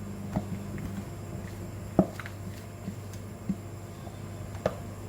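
Spinach being added to a cooking pot: a few light knocks and soft handling sounds, the loudest about two seconds in, over a steady low hum.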